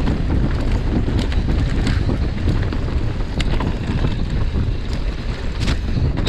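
Wind buffeting the camera microphone as a mountain bike rides down a dirt trail, over a steady low rumble of tyres on the ground, with a few sharp rattles from the bike about a second, two seconds, three and a half seconds and five and a half seconds in.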